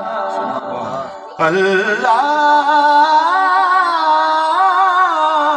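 A man singing a naat into a microphone, holding long wavering notes with melismatic ornaments. The line drops away briefly about a second in, then a strong held note comes in and carries on.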